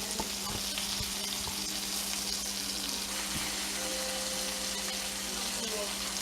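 Trout fillets sizzling as they fry in a pan, a steady hiss with small pops.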